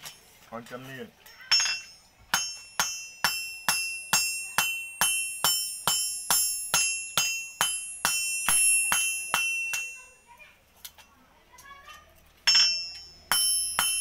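Hand hammer striking a steel knife blade on an anvil: a steady run of ringing metal blows, about two to three a second. The blows stop for a couple of seconds around ten seconds in, then resume near the end.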